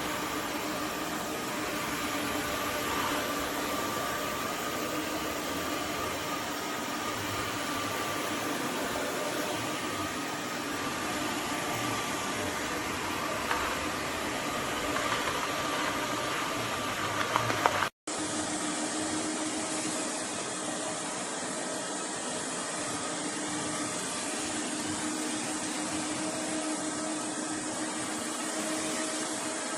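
Roborock F25 GT wet-dry floor washer running its self-cleaning cycle in the dock: a steady motor whir with a faint hum, a few small clicks, and a brief drop-out about two-thirds of the way in before the whir carries on.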